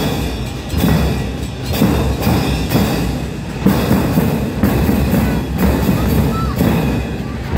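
Marching drum-and-cymbal band playing a steady beat, about two strokes a second, with bass drums and cymbals struck together.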